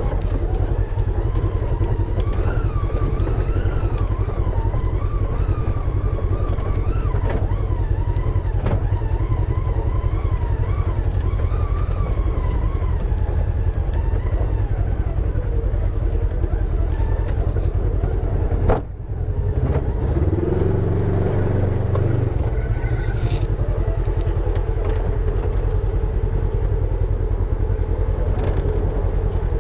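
Polaris side-by-side UTV engine running at low throttle while crawling over rocks, with heavy rumble under a whine that rises and falls with the throttle in the first half. A sharp knock sounds a little under two-thirds of the way through.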